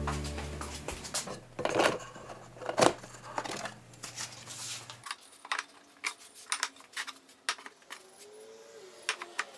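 Irregular clicks and clacks of small hard objects being handled and set down, over a low steady music bed that cuts off about halfway through.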